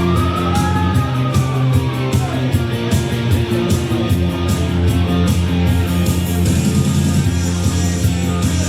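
Rock music with guitar and a steady beat, with bending, gliding notes about a second in.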